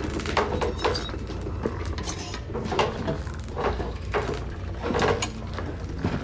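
Wooden ship's timbers creaking, with scattered knocks and thumps, over a low steady rumble.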